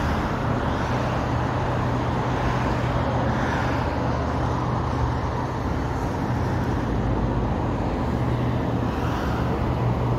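Steady rumble of distant road traffic with a low engine hum under it.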